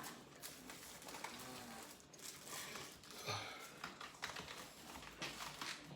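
Quiet kitchen handling: faint, scattered light clicks and taps of utensils and food being handled.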